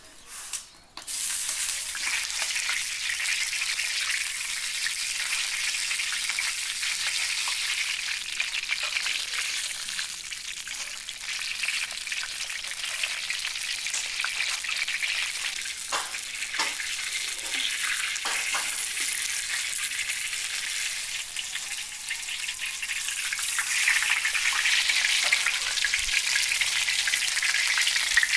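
Food frying in hot oil in a pan: a steady sizzle that starts suddenly about a second in and runs on, getting a little louder near the end, with a few brief knocks around the middle.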